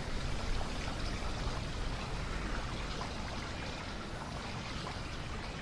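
Steady, even background noise like trickling water, with no distinct events.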